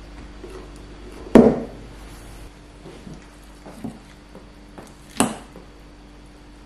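Tableware sounds: a ceramic bowl knocks down onto the table about a second and a half in, then lighter taps and clinks of forks against ceramic bowls as salad is tossed and pasta is forked, with one sharper clink about five seconds in.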